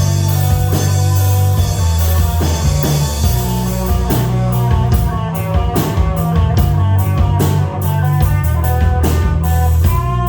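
Live rock band playing an instrumental outro: electric guitar, bass and drum kit, with held guitar notes over a steady bass line and a regular beat whose cymbal strokes grow more distinct about four seconds in.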